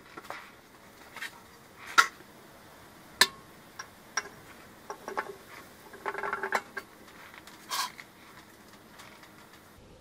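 Scattered metallic clinks and knocks as a tractor water pump housing is fitted over the studs of the engine block. The sharpest knock comes about two seconds in, and a cluster of rattling clinks follows around six seconds.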